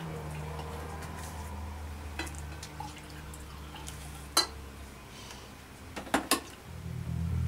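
Mug and coffee carafe clinking and knocking on a kitchen counter as coffee is poured: a few sharp knocks, the loudest about four seconds in and a close pair near six seconds, over a low steady hum.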